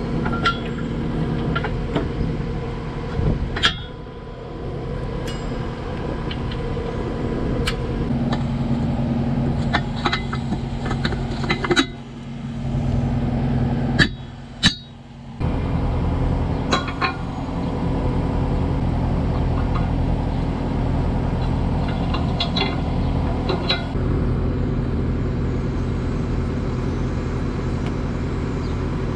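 Farm machinery engine idling steadily, with sharp metal clinks and knocks from a three-point quick-attach hitch being fitted. The engine sound dips briefly about halfway through.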